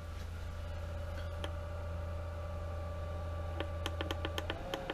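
Hayward Super Pump VS variable-speed pool pump motor running at 1000 RPM with a steady hum and whine. From about three and a half seconds in comes a quick run of about ten clicks as the + button on its control keypad is pressed, and near the end the whine rises slightly in pitch as the motor speeds up.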